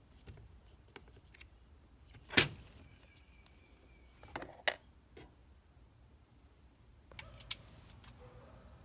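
Sharp clicks and clacks of hand tools and small parts being handled: one loud click a couple of seconds in, a few more about halfway, and two near the end.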